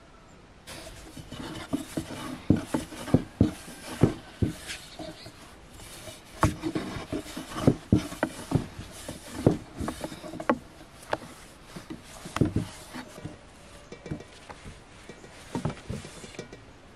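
Wooden rolling pin working thin dough on a wooden board: a low rolling rumble broken by many irregular wooden knocks and taps as the pin is pressed, lifted and set down. It starts suddenly under a second in.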